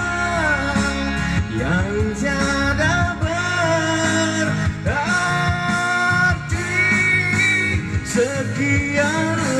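Band music: a sliding, wavering melody line over a steady bass and guitar accompaniment.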